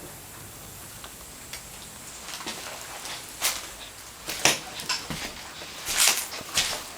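Footsteps crunching on dry ground or debris, irregular and about one every half second to a second, starting about two seconds in over a steady hiss.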